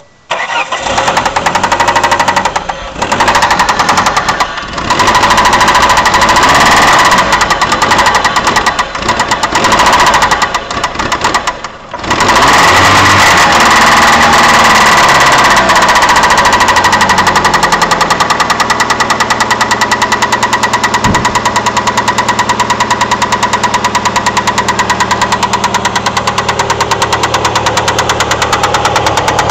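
Engine running with a fast, even knock, which the owner suspects could be a rod bearing. It runs unevenly with several short dips for about the first twelve seconds, then settles into a steady run with the knock repeating throughout.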